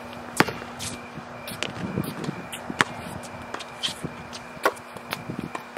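Basketball bouncing on an outdoor court: a handful of sharp thuds at irregular intervals, roughly once a second, with light footsteps, over a steady low hum.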